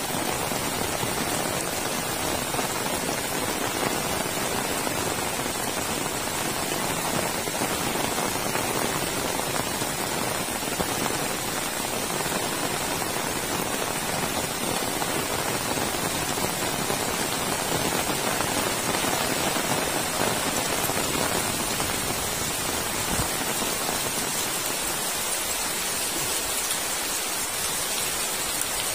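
Heavy rain falling steadily, an even hiss of rain on the ground and foliage.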